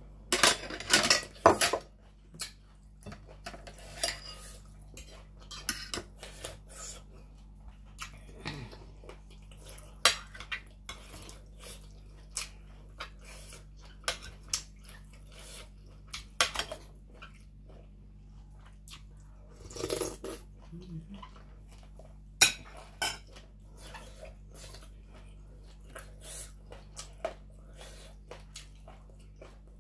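Metal spoon clinking and scraping against a plate of food in scattered sharp clicks, with the loudest run in the first couple of seconds and another cluster about twenty seconds in.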